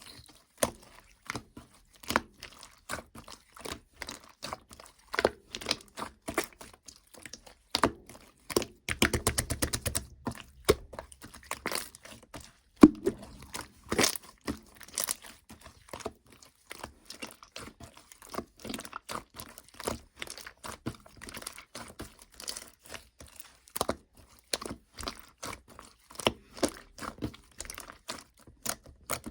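Slime being squished, poked and stretched by hand, making scattered sticky clicks and pops, with quick runs of crackling popping about nine seconds in and again near the end.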